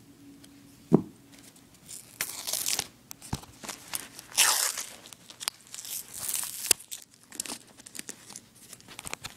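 Scissors cutting the paper label band off a hank of paracord: a sharp snap about a second in, then the paper band tearing and crinkling in repeated bursts as it is worked loose.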